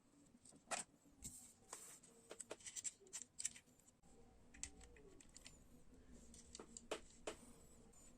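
Faint, scattered clicks and short rustles of small parts and tape being handled, busiest in the first half.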